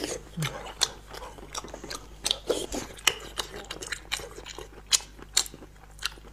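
Close-miked chewing and mouth clicks from a man eating spicy snail meat: a steady, irregular run of short sharp smacks and crunches.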